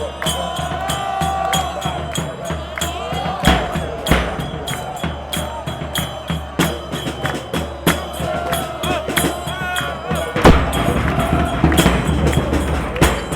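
Music: a wavering melody over a steady percussion beat.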